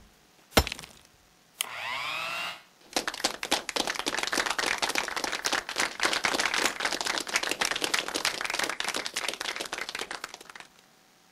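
A series of short sound effects: one sharp knock like a hammer blow about half a second in, then about a second of electric hand mixer whirring with a wavering pitch, then dense crackling for about eight seconds that stops abruptly near the end.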